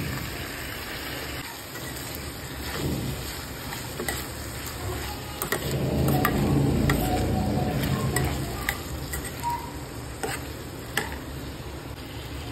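Potato cubes being stirred in a pan of hot oil: a spatula scraping and knocking against the pan, with several sharp clicks, over a light sizzle.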